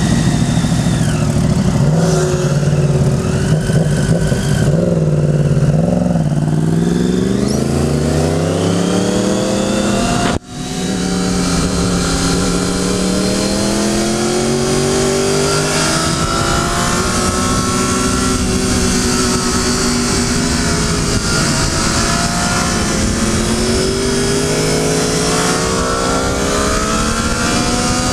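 Triumph Daytona 675's inline-three engine heard on board at riding speed, its revs rising and falling with throttle and gear changes, over a steady rush of wind. The sound cuts out briefly about ten seconds in.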